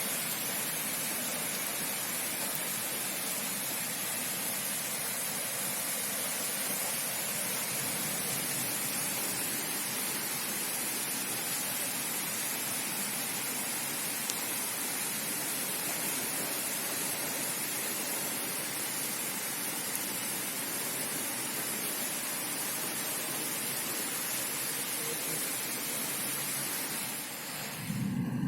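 Heavy rain falling in a thunderstorm downpour: a steady, even hiss with no thunder heard. It stops abruptly near the end.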